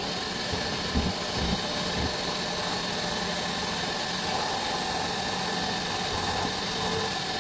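Milling machine spindle running as an end mill cuts into a threaded metal ring clamped in the vise: a steady cutting noise, with a few low thumps in the first couple of seconds.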